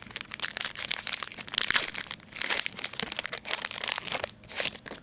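Crinkling and rustling of a plastic/foil trading-card pack wrapper being handled, in quick irregular crackles with short pauses.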